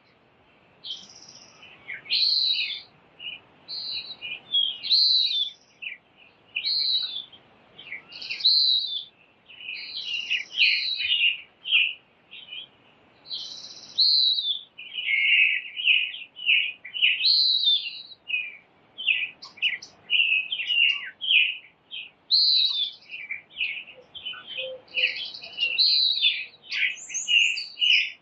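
Songbirds chirping and singing: a steady run of short, high phrases one after another, some overlapping.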